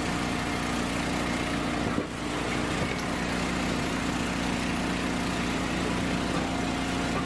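Engine driving the hydraulics of an Eastonmade 12-22 log splitter, running steadily at an even pitch.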